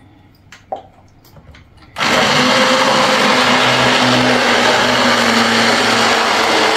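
Hand-held stick blender starting up about two seconds in and running steadily, blending a pot of cooked dal. Before it starts there are a few light knocks.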